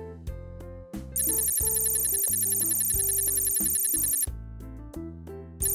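A loud, rapid, high-pitched ringing sound effect starts about a second in and cuts off about four seconds in, then starts again near the end. Cheerful children's background music plays under it.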